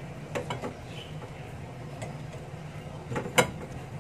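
A few light knocks and clicks from a raw chicken being handled in a glass bowl while it is stuffed: a small cluster about half a second in and two sharper ones a little after three seconds, over a low steady hum.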